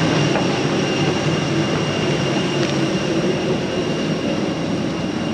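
Steady hum of a parked airliner's air-conditioning and auxiliary power, with a constant high whine over it, heard at the cabin door.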